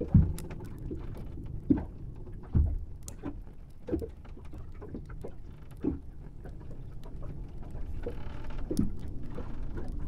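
Sci-fi spaceship ambience: a low rumble with irregular dull knocks and creaks every second or two, and a soft hiss for a moment near the end.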